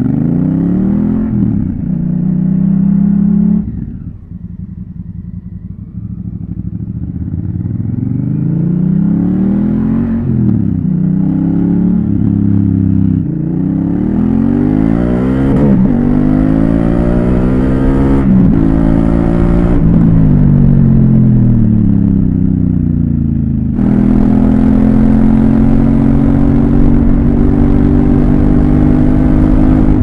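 Honda CRF1000L Africa Twin's parallel-twin engine pulling away and accelerating through the gears, its pitch climbing and dropping back with each shift. The engine eases off briefly about four seconds in, then settles to a steady cruise in the last third, with wind rush at speed.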